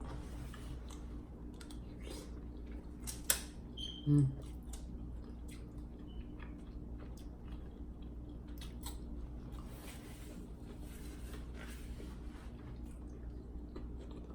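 Quiet chewing and mouth sounds of someone eating, with scattered small clicks over a steady low hum. There is one sharp click about three seconds in and a short hum-like vocal sound just after four seconds.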